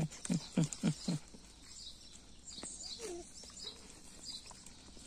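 A dog close by panting in quick rhythmic breaths, about five in the first second, then faint bird chirps.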